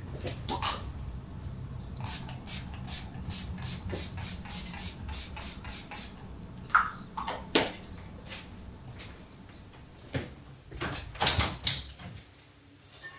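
Household handling sounds: a run of quick light taps, then a few louder knocks and clatters, over a steady low hum that stops near the end.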